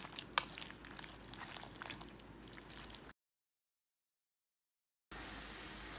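A hand mixing wet vegetable pancake batter in a stainless steel bowl: soft squelching with small clicks for about three seconds. Then dead silence for about two seconds, and near the end a steady sizzle of batter frying in a pan comes in.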